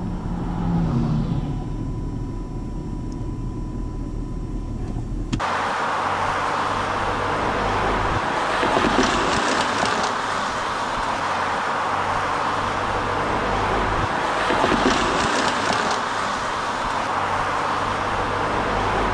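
Diesel train engines running steadily at a distance. About five seconds in there is a sudden cut to the louder, close-up running of a Northwestern Pacific diesel locomotive idling.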